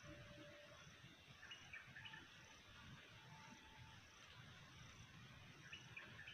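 Faint forest ambience: insects chirping in an evenly repeating high pulse, with a few short, faint bird notes.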